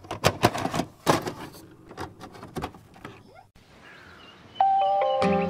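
A VHS tape player's mechanism, clicking and clunking quickly and irregularly for about three seconds as the tape loads and starts to play. About four and a half seconds in, acoustic guitar music begins.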